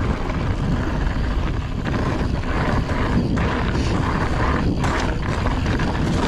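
Wind buffeting the microphone and mountain bike tyres rolling over rocky dirt singletrack, with scattered clicks and rattles from the bike over the rocks.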